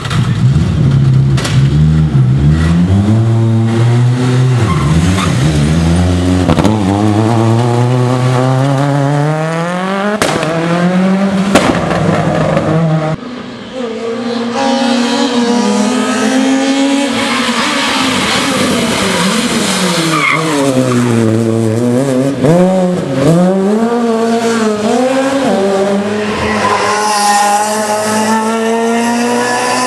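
Rally cars at full stage pace, their engines revving hard, rising through the gears and dropping off as the drivers lift and brake for the corners, one car after another. A few sharp cracks cut through in the first half.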